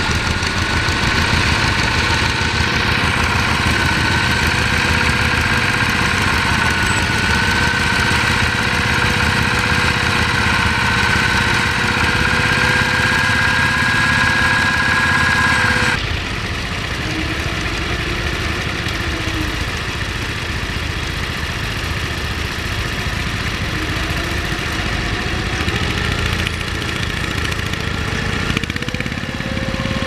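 A vintage tractor's engine running steadily while pulling a plough, with a high whine that slowly rises in pitch. About halfway through the sound cuts to a small garden tractor's engine, somewhat quieter, running steadily as it ploughs.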